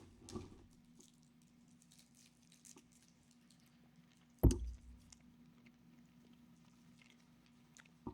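Faint wet mouth clicks and squishes of someone sucking on a cough drop, with one loud sudden thump about halfway through.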